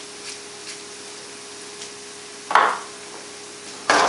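Sliced leeks frying quietly in a pan, with a few faint ticks of a pepper grinder early on. About two and a half seconds in comes a short loud rasp, and near the end the pan is shaken on the gas hob, the leeks sliding and sizzling loudly.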